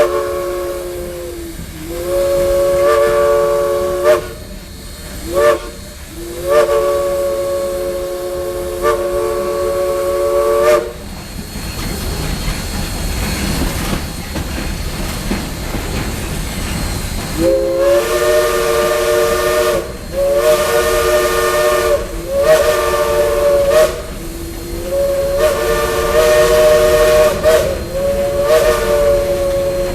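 Steam locomotive chime whistle sounding a three-note chord in a long, long, short, long grade-crossing pattern. After a stretch of steam hiss and rumble, it gives a run of about five more long blasts.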